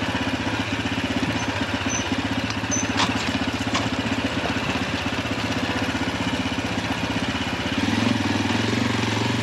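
Small dual-sport motorcycle's single engine running steadily at low trail speed, its note changing and getting a little louder about eight seconds in. Two light sharp ticks are heard around three and four seconds in.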